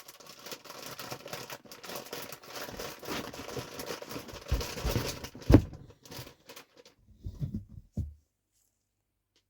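Plastic mushroom grow bag crinkling and rustling as it is handled, with a single thump about five and a half seconds in. A few bumps follow, and the sound stops about eight seconds in.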